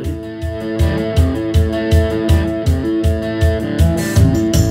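Guitar music with a steady bass beat, played loud through room speakers driven by a Nobsound NS-10G Bluetooth mini stereo amplifier.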